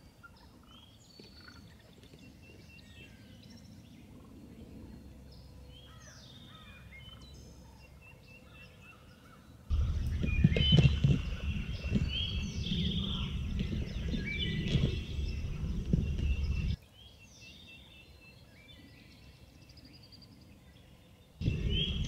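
Wild turkey gobbling among chirping songbirds in the woods. In the middle there is a louder stretch with heavy low rumbling noise under the calls.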